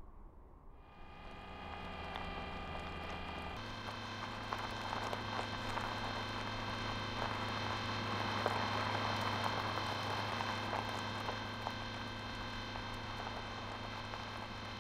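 Sound effect of the rover driving: a steady motor hum with several held tones over a fine crackle of wheels on gravel. The hum grows fuller about three and a half seconds in.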